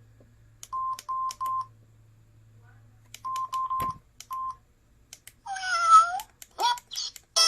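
Samsung SGH-E315 mobile phone keypad tones: short beeps, all at one pitch, each with a key click, in two quick groups and then a single one as the menus are stepped through. About two seconds from the end, sliding, warbling tones from the phone's speaker begin as a ringtone starts playing.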